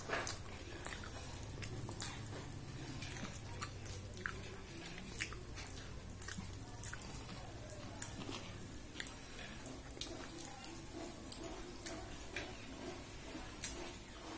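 Close-up eating sounds of soft millet khichdi eaten by hand: irregular wet mouth clicks and smacks while chewing, with food being mixed by hand on a steel plate.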